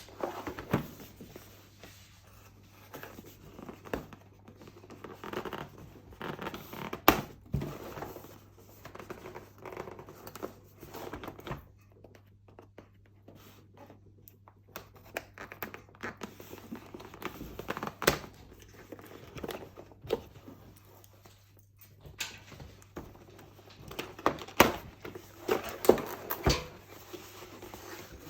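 A keyboard's cardboard box and its packaging being opened and handled: irregular scratchy handling noise with sharp knocks and clicks now and then, the loudest about seven seconds in, around eighteen seconds, and twice near the end.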